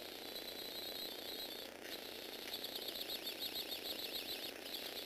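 Small electric motors and Lego Technic gear trains of a motorized Lego Technic 8265 wheel loader running, a high whine with a wavering pitch over gear rattle. It cuts out briefly twice and is louder in the second half.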